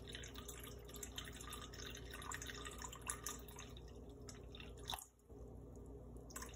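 Water trickling and dripping from a glass measuring cup into a stainless steel bowl, poured a little at a time to bring it up to a target weight on a scale. There is a brief break in the trickle about five seconds in.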